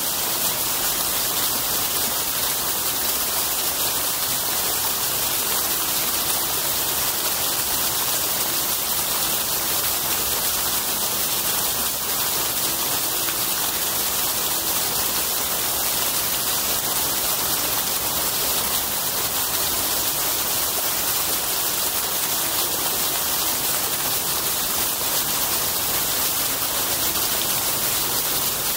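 Fountain water splashing steadily into its basins, a constant even rush with no breaks.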